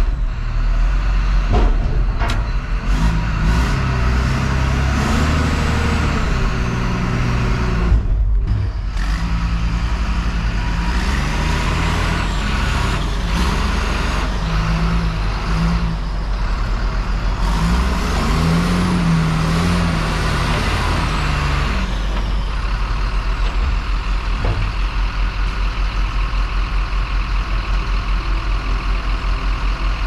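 Caterpillar IT28F wheel loader's diesel engine working under load, its revs rising and falling as the bucket lifts and swings, with the hydraulics whining. Near the end it settles into a steady, evenly pulsing run as the loader backs away.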